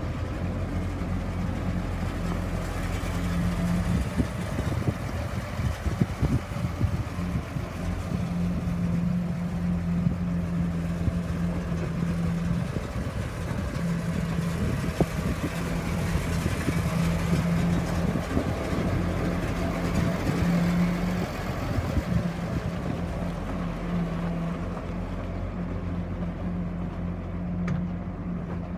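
A 2012 McCormick TTX190 tractor's 6.7-litre six-cylinder diesel engine running steadily as the tractor drives slowly around a gravel yard.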